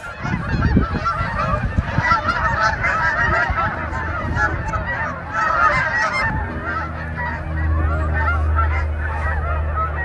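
A large flock of geese flying overhead, many birds honking at once in a continuous overlapping chorus, with a low rumble underneath that grows steadier in the second half.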